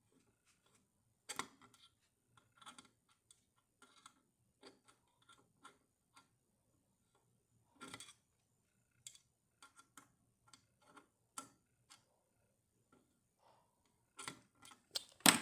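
Screwdriver clicking and tapping against a stubborn screw that won't come out: scattered light clicks spread out and irregular, with a louder cluster of sharp knocks near the end.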